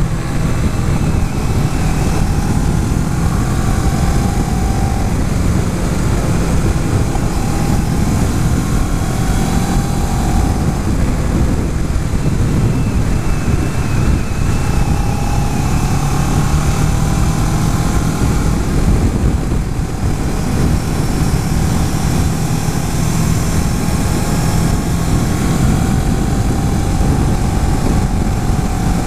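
2011 Kawasaki Ninja 650 parallel-twin engine running at road speed under a steady rush of wind noise, its pitch drifting gently up and down with the throttle.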